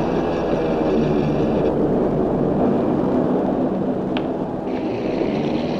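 Steady engine rumble of a military jeep driving, with a brief click about four seconds in.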